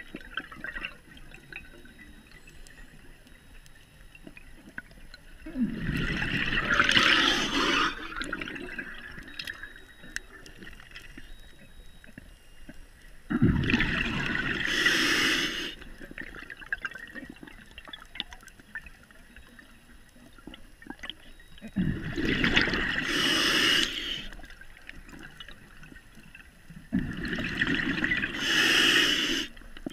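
Scuba diver breathing through a regulator, heard underwater: four long, rushing bursts of exhaled bubbles, each about two to three seconds long and roughly eight seconds apart, with quieter intervals between them.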